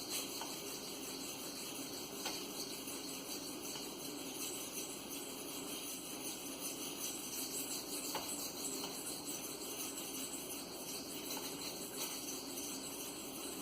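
Maxamet steel knife blade being drawn over a cheap whetstone: a faint, steady, gritty scraping with a few light clicks. The stone has little cutting power and is chipping the edge.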